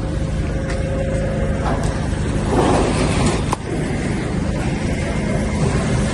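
Vehicle engine idling steadily, with a short rushing noise about two and a half seconds in that ends in a sharp click.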